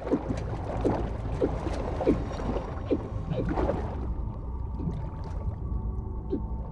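Underwater sound design: air bubbles gurgling over a steady muffled low drone. The bubbling is busy for about the first four seconds, then thins out, leaving the drone with a faint high steady tone.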